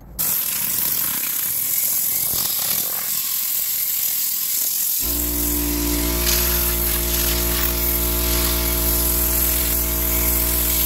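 Compressed air hissing hard from a generic Tornador-style air cleaning gun blasting dirt out of car carpet. About five seconds in, a steady buzzing hum joins the hiss.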